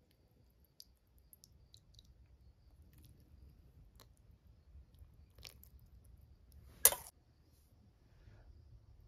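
Faint small clicks and handling sounds of a metal spoon working soaked bread in a steel bowl, with one sharp clink of the spoon against the bowl about seven seconds in.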